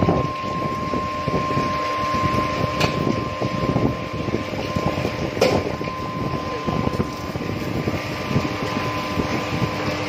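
Induction melting furnace pouring molten metal into a ladle: a rough, crackling rush with a steady high-pitched whine from the furnace. There is a sharp crack about three seconds in and another about five and a half seconds in.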